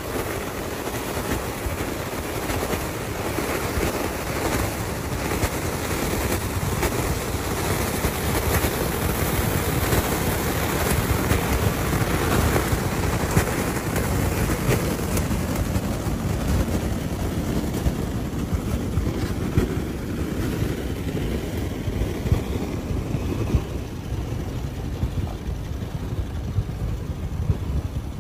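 A Jeep's engine running steadily, with wind noise on the microphone.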